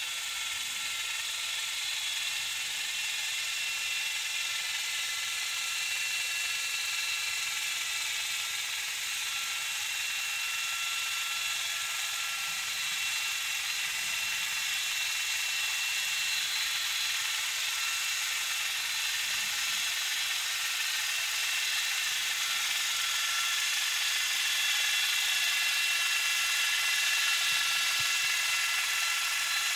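Underwater sound of a passing sailboat's engine and propeller picked up by a hydrophone: a steady mechanical whine of several fixed tones over a hiss, slowly growing louder.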